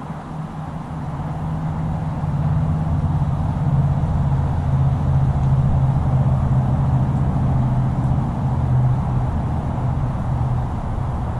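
A low, steady engine drone that builds over the first couple of seconds and then holds.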